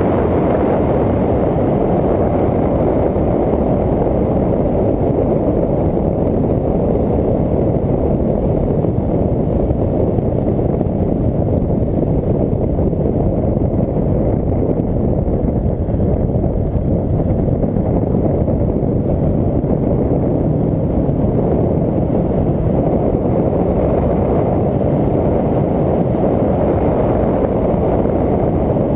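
Wind buffeting the microphone of a camera moving along an open road: a loud, steady rumble with no engine note in it.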